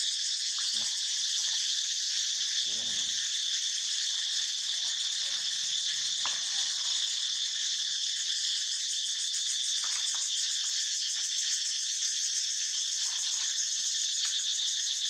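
Steady chorus of insects, a continuous high-pitched buzzing. A faint short call or voice is heard about three seconds in.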